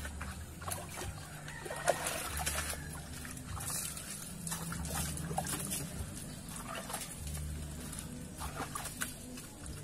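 Water scooped from a plastic bucket with a dipper and splashed over a motorcycle to rinse off the soap, with repeated splashes and dribbling. An animal calls in the background.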